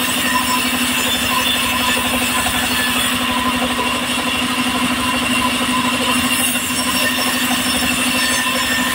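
Engine-driven portable sawmill running steadily while its saw cuts a log into slabs: a continuous engine drone with a steady hum and higher tones from the machinery.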